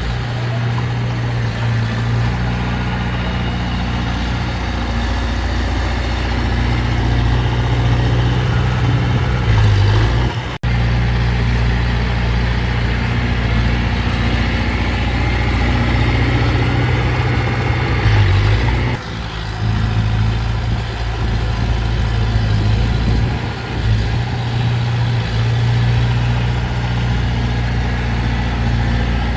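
Heavy diesel engine of earthmoving machinery running steadily, its low hum holding level with slight rises in pitch, and the sound cutting out for an instant about a third of the way through.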